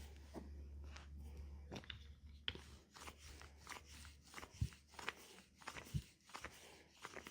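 Hands working on bare skin in a leg massage: faint, irregular clicks and crackles with a couple of soft thumps.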